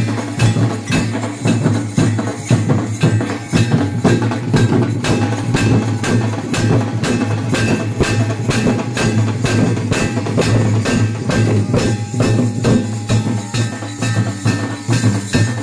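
A dhol tasha drum group playing: large barrel-shaped dhol drums beaten with sticks in a steady, driving rhythm of sharp strokes, about three a second.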